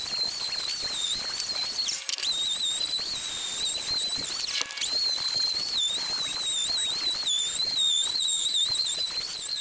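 DeWalt random orbit sander running on a wooden 4x4 beam: a steady, high-pitched motor whine that wavers and dips in pitch several times as the sander is pressed and moved over the wood.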